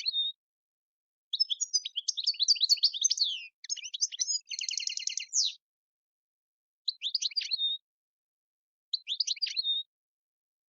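European goldfinch singing: quick twittering phrases separated by short silences, a long run of notes near the start, a buzzy trill about halfway through, then two short phrases near the end.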